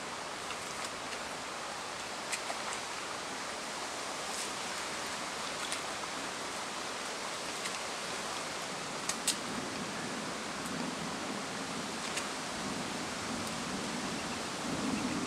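Swollen floodwater creek running, a steady rushing hiss, with a few small clicks scattered through it and a low rumble building in the last few seconds.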